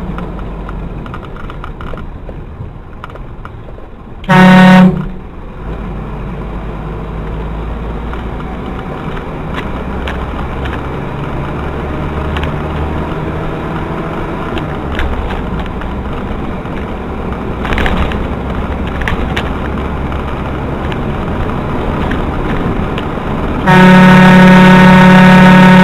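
Car horn: one short honk about four seconds in, then a long held blast near the end, over steady engine and road noise.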